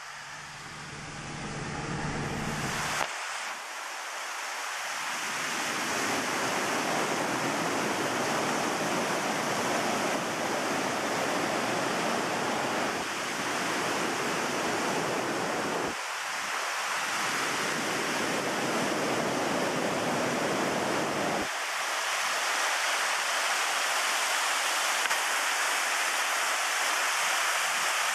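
Mountain stream rushing and splashing over boulders, a steady rush of white water. For the first three seconds or so a low hum from a moving car comes first, cutting off abruptly.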